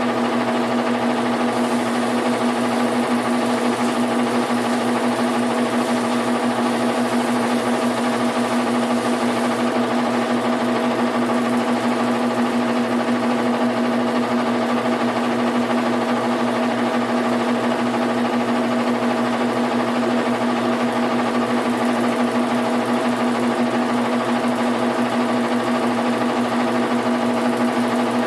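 Washing machine running with a loud, steady, unchanging hum: the unwanted noise the machine is making.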